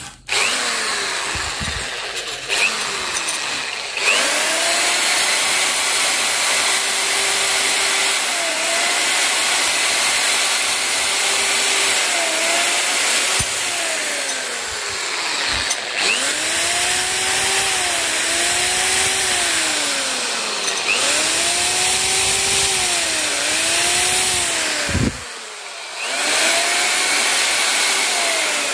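Electric drill spinning a wire brush against the carbon-crusted crown of a motorcycle piston, scrubbing off the deposits with a hissing scrape. The motor's pitch rises and falls over and over, and it briefly drops off a few seconds before the end.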